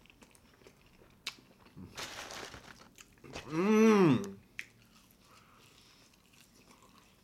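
A man eating a Big Mac with open-mouthed, smacking chewing and sharp mouth clicks, a short rustle about two seconds in, then a loud 'mmm' moan that rises and falls for about a second, midway through.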